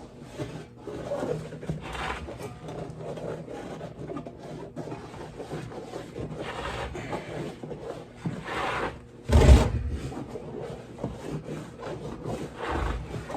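A hand rubbing and scraping around the inside of a lawn tractor tire, feeling for any thorn left in it, with one louder thump about two-thirds of the way through.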